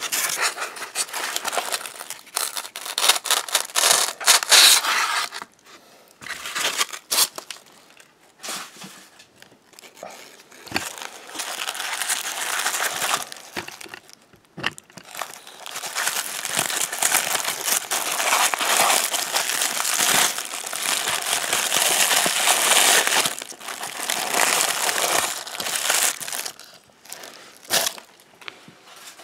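Tissue paper crinkling and rustling as an ornament is unwrapped from its box, in two long stretches with a quieter spell of a few seconds between them that holds a few sharp knocks.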